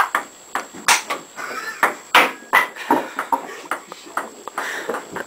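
Ping pong ball clicking off paddles and the table top in a rally, a quick irregular run of sharp clicks.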